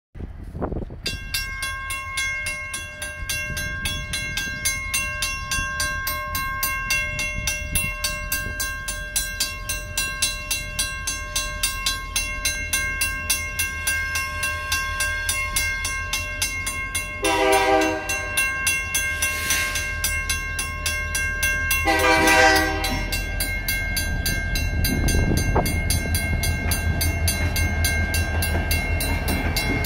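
A WCH mechanical crossing bell ringing with rapid, even strikes throughout, while two BNSF diesel locomotives running light approach. The lead locomotive sounds its horn in two blasts of about a second each, about halfway and about two-thirds of the way through, with a third starting at the very end, and the locomotives' low diesel rumble grows louder as they near the crossing.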